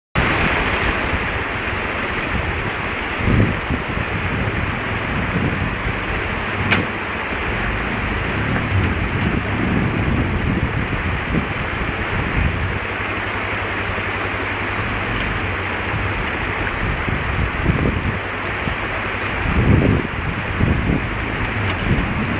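Steady rush of creek water over rocks, with the low, uneven running of a Suzuki ATV engine underneath as the quad crawls up the rocky stream bed. A single sharp knock about seven seconds in.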